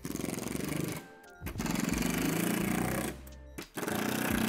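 Cordless power driver running in three short bursts, driving screws through a shed wall support into the plastic wall panel, with a fast buzzing rattle on each run.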